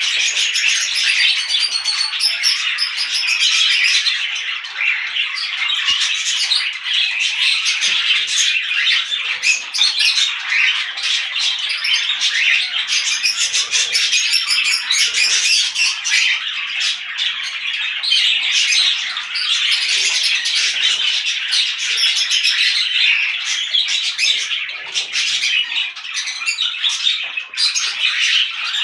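A mixed flock of small parrots (budgerigars, lovebirds, cockatiels and kakariki) chattering and squawking together, many birds at once, continuously.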